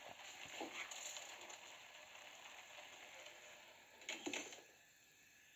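Faint bubbling of a pan of water at a rolling boil, then a brief clack about four seconds in as the glass lid is handled.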